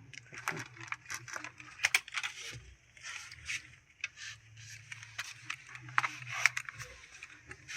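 Irregular small clicks, taps and scrapes of objects being handled, with no steady sound underneath.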